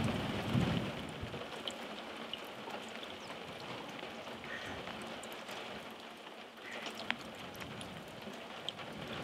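Steady rain falling, with scattered ticks of single drops. A low rumble dies away about a second in.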